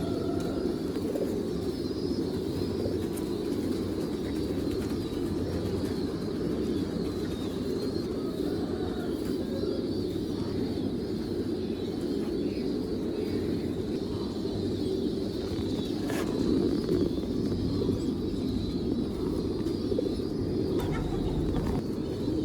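Many domestic pigeons cooing at once, a steady low mass of overlapping coos, with a sharp click about 16 seconds in.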